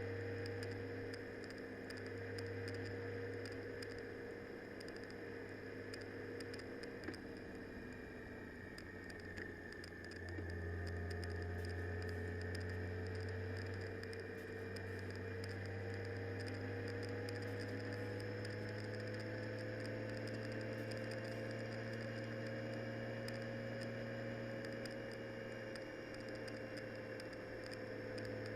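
Steady low drone of a vehicle driving, its engine tone drifting slowly up and down with speed, with faint light ticks of rain patter.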